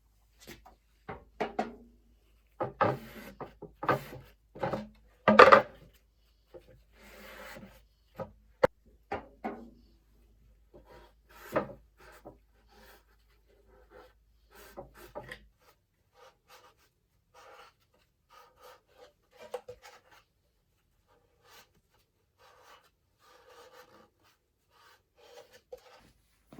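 Irregular rubbing and scraping strokes with light knocks from hands working over the rocket parts, in keeping with wiping them down with a cloth. The strokes are louder and closer together in the first half and fainter and sparser later.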